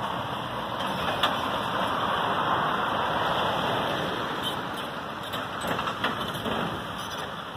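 DAF articulated lorry with a curtainsider trailer driving slowly past close by: engine running and tyres on the road, loudest a couple of seconds in and fading as it pulls away. A sharp click about a second in.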